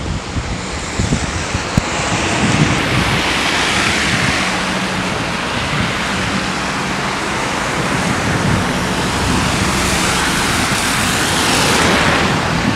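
Vehicles driving past on a wet, slushy road, their tyres hissing through the slush, swelling as one passes about three seconds in and again as a truck passes near the end. Wind buffets the microphone throughout.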